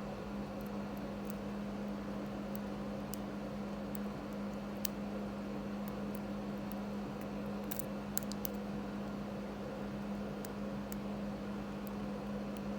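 Faint, scattered small clicks of a hook pick working the pin tumblers of a Hercules padlock under tension, heard over a steady low hum.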